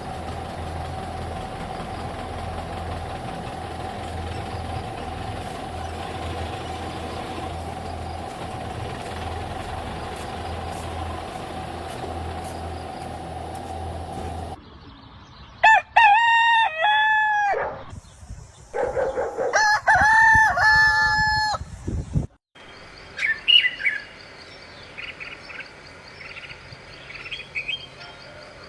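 A steady mechanical hum with one constant tone, cut off suddenly about halfway through; then a rooster crows loudly twice, followed by softer, scattered bird chirps.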